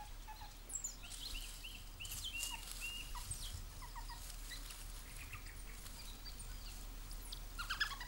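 Banded mongooses giving faint, quick high-pitched chirps and squeaks, several in a row, with a busier burst of calls near the end.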